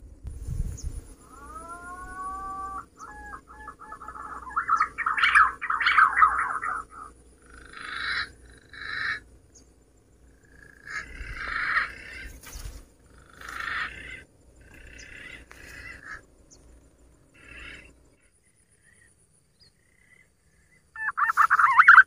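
Green pigeon (punai) calls, whistled: a few arching, rising-and-falling whistles, then warbling, trilled phrases in short bouts with pauses between. About a second before the end, a louder, fast-pulsing call starts.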